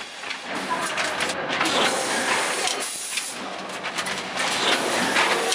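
Rotary pouch packing machine running: steady mechanical clatter, with a hiss of air from its pneumatic grippers about once a second.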